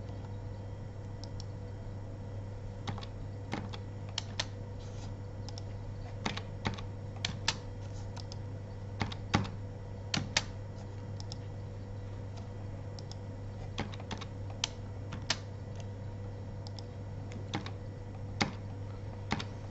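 Computer keyboard keys pressed one at a time: scattered single clicks at irregular gaps, more frequent from about a third of the way in, over a steady low hum.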